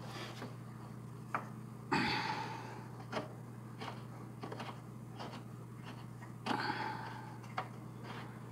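Hands fitting parts of the drive-pulley mount under the frame of a Cub Cadet XT1 riding mower: scattered faint clicks and taps of metal parts, with two short louder breathy sounds of effort, about two seconds in and again near the end, over a steady low hum.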